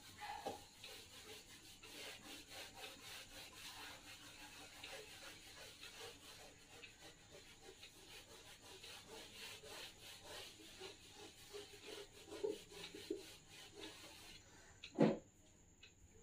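Board eraser rubbing across a whiteboard in many quick back-and-forth strokes, wiping off marker writing; faint and scratchy. One short thump about fifteen seconds in, after the rubbing stops.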